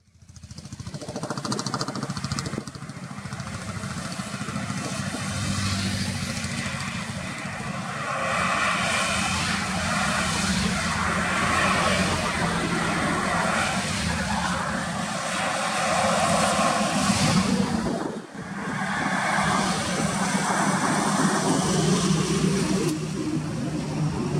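Highway traffic going by close at hand: engines of buses, trucks and cars with tyre noise on the road, swelling each time a vehicle passes. It fades in at the start and drops out briefly about eighteen seconds in.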